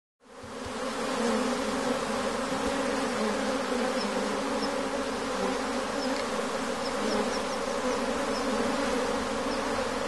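Steady, dense buzzing of a honeybee colony crowded at a hive entrance, fading in over the first second.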